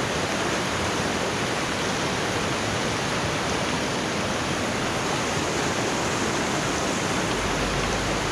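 Fast-flowing river running over rocky rapids, a steady loud rush of whitewater heard from right at the water's edge.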